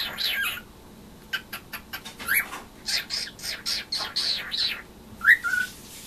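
Cockatiel chattering: a fast run of short, high chirps and squeaky whistled notes, pausing briefly, then a rising whistle that holds for a moment near the end.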